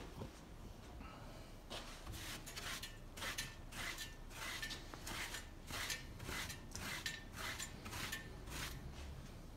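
Sawdust and router shavings being swept off a freshly planed wooden board by hand: a run of quick, even rasping strokes, about three a second, starting about two seconds in.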